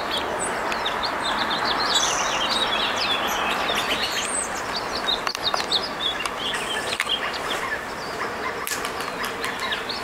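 Songbirds chirping, many short high calls scattered throughout, over a steady rush of background noise.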